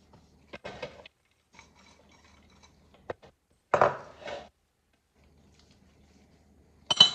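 Kitchen utensils knocking and scraping against a bowl while a salad is tossed. There are a few scattered knocks, a louder scrape about four seconds in, and a bright ringing clink near the end.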